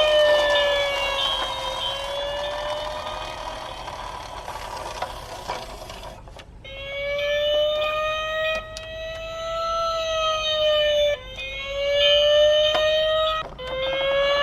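Emergency vehicle siren wailing, its pitch slowly rising and falling. It fades past the middle and breaks off, then starts again and is cut off and restarted twice near the end.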